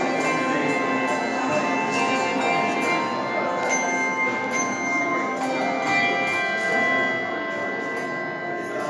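A handbell choir playing: many tuned handbells struck in turn and left ringing, their long, overlapping tones building into chords.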